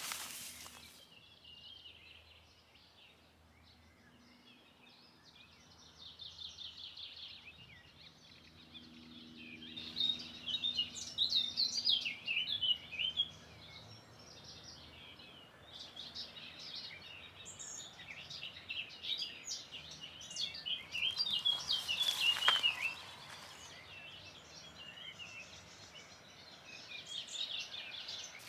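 Songbirds singing in an early-morning chorus: many overlapping chirps and trills, busiest around ten to thirteen seconds in and again around twenty-one to twenty-three seconds in. Under them runs a faint, steady low hum.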